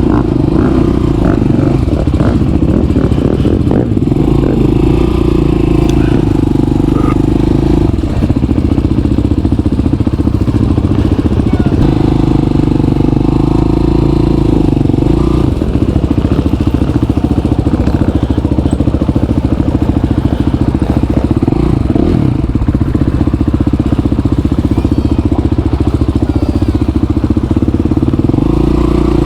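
Motorcycle engine running under way, its revs rising and falling several times as the rider works through the gears, with wind and road noise.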